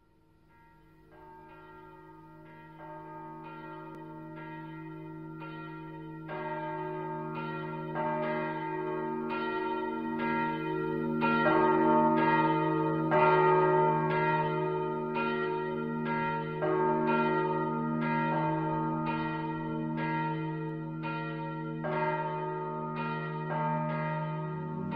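Church bells ringing, struck at an even pace of about two strikes a second over a sustained low hum, fading in from silence over the first ten seconds or so.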